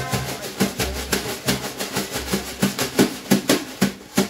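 Wire brushes on a snare drum playing a slow samba groove, sweeps and taps over a recorded backing track with bass notes. The bass stops about halfway, leaving the brush strokes, with a few sharper accented hits near the end.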